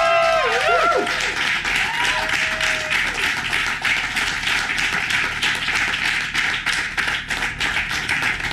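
A small crowd of people clapping, with a few high whoops and cheers in the first second or so.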